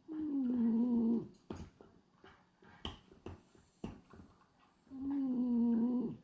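French bulldog snoring in its sleep: two long, pitched snores about five seconds apart, each dropping slightly in pitch and then holding for about a second. A few faint clicks fall in the quiet between them.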